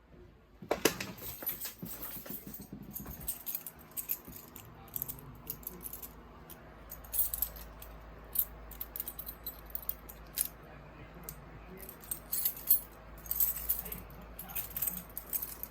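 A bunch of keys jangling and clinking in irregular bursts, with a heavier handling clunk about a second in.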